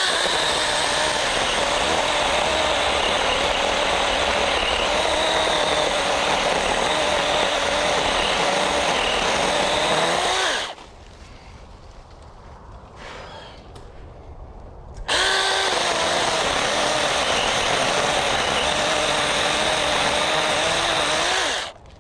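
Small 6-inch electric chainsaw cutting through a fallen tree trunk, its motor whine wavering and dipping as the chain bites into the wood. It runs for about ten seconds, stops for about four, then cuts again for about six seconds before stopping.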